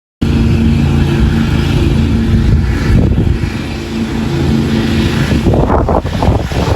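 Lawn mower engine running steadily at working speed.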